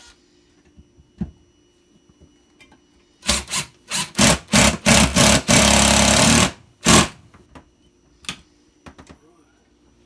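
Cordless drill driving a screw up through a metal shelf bracket into the shelf: several short trigger pulses, then a steady run of about a second, then one last short burst.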